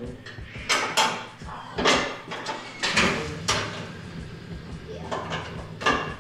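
Steel cowl induction hood clanking and knocking against the car body as it is held up and shifted into place for fitting: a series of sharp metal knocks at irregular intervals.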